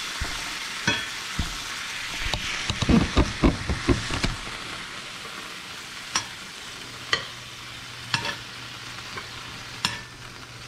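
Venison backstrap pieces sizzling in a very hot cast-iron skillet, searing at high heat. Metal tongs click and knock against the pan as pieces are lifted out: a quick run of knocks around three seconds in, then single clicks every second or so. The sizzle eases after the first few seconds.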